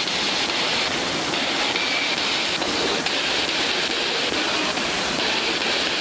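Steady rushing of a waterfall: an even, unbroken noise with no break.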